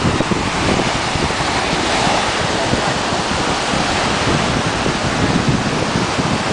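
Ocean surf with wind buffeting the microphone: a steady rushing noise.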